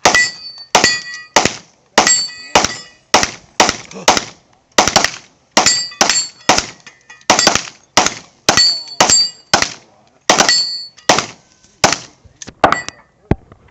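Rapid pistol fire at steel targets, about two shots a second with short pauses, many shots followed by the ringing clang of a hit steel plate on a Texas Star target.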